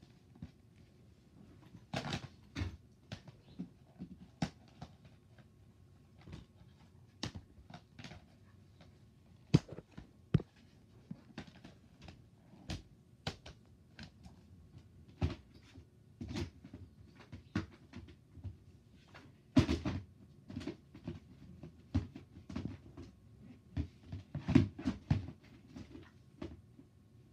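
Irregular clicks, taps and knocks of small hard items being handled and set down, scattered all through, with the loudest knocks about 10, 20 and 25 seconds in.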